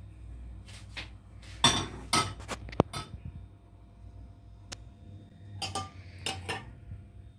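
Kitchen utensils and dishes clinking and knocking as they are handled: a cluster of sharp clinks about two seconds in, and a few more near the end.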